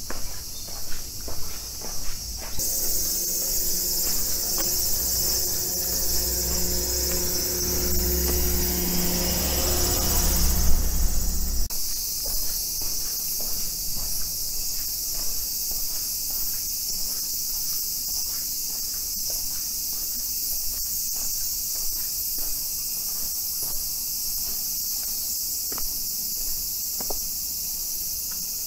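Steady high-pitched insect chorus, with footsteps on pavement at about two steps a second. From a few seconds in, a low mechanical hum with a deep drone builds up and then cuts off abruptly about twelve seconds in.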